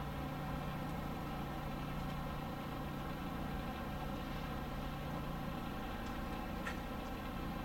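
Steady engine hum, an even mechanical drone with a faint tick near the end.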